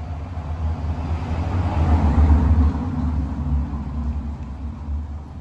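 A motor vehicle passing by: a low rumble that builds to a peak about two seconds in and then fades away.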